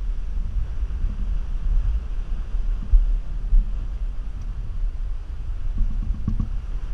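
Wind buffeting the microphone on a sailing boat under spinnaker, a gusty low rumble with two brief louder gusts about halfway through.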